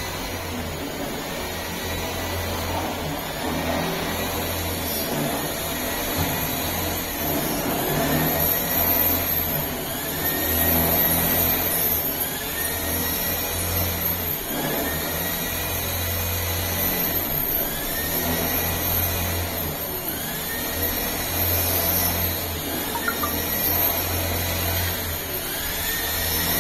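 Machinery whirring over a steady low hum, its pitch rising and falling in a repeating cycle about every two seconds.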